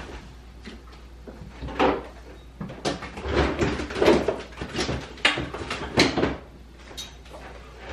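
Kitchen doors opening and closing while groceries are handled and put away: a run of irregular clunks and knocks, busiest in the middle.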